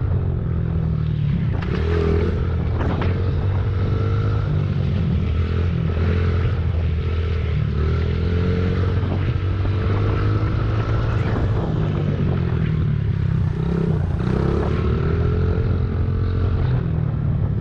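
Off-road motorcycle engine running while riding a dirt trail, its note rising and falling with the throttle. A few short knocks come from the bike over bumps.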